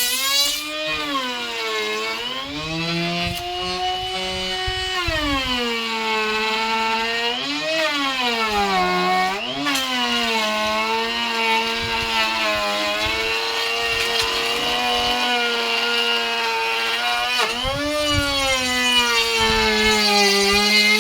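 Electric power tool running on wood, its motor pitch sagging and recovering several times as it takes load.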